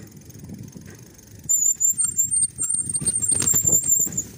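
Mountain bike brakes squealing in loud, high-pitched spurts from about a second and a half in until near the end, over the rumble of knobby tyres on a dirt trail and the rattle of the bike over bumps.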